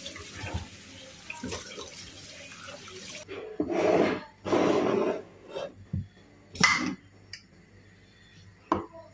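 Tap water running into a stainless steel sink while a bottle is rinsed under it, cutting off abruptly about three seconds in. Then come two loud one-second bursts as a jar of tomato purée is shaken, a sharp knock near the seven-second mark, and a few faint clicks.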